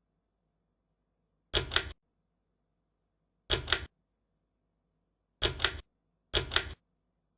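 Ceiling fan pull-chain switch clicking four times, each pull a quick double click.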